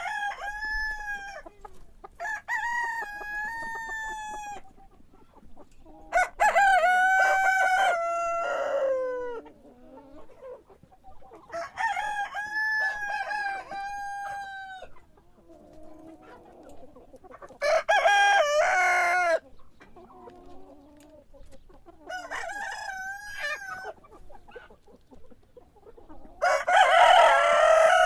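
Roosters crowing again and again, about seven long crows spread through the span, with hens clucking more quietly between them.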